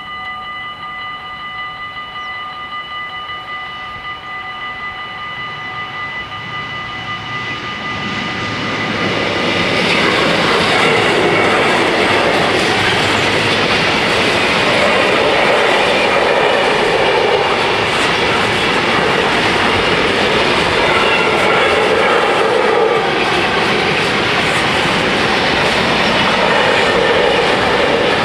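Level-crossing warning bells ringing steadily. From about eight seconds in, the bells are drowned out by a DB freight train of tank and container wagons passing at close range, its wheels rolling and clattering loudly and evenly on the rails.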